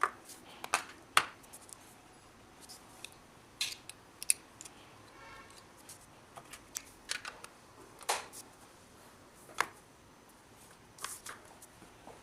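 Scattered small clicks and light taps at irregular intervals, with several louder clicks among quieter ones, like small objects being handled.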